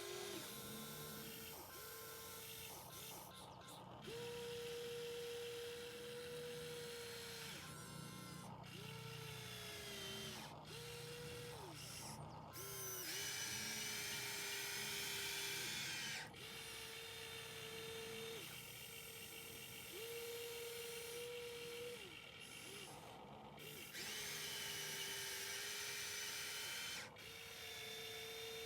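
Small electric motors of a remote-controlled model excavator whining in short runs of one to three seconds, each starting and stopping on a steady tone. Twice the motors run louder and harsher for about three seconds.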